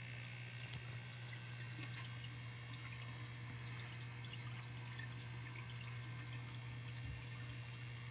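Water from a small stone waterfall steadily trickling and splashing into a garden medaka biotope pond, with a low steady hum underneath. One sharp tick about five seconds in.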